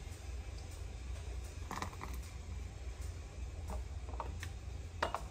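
Scattered light clinks and knocks of a ladle and canning funnel against glass canning jars as hot jam is ladled in, the loudest about five seconds in, over a steady low hum.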